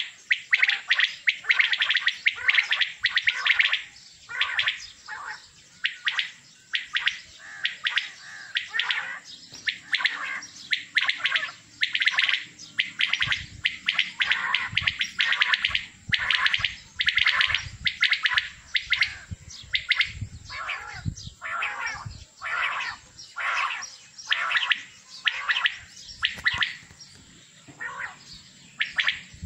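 A chorus of many caged male quails calling together: short, sharp repeated calls overlapping into a dense, unbroken stream.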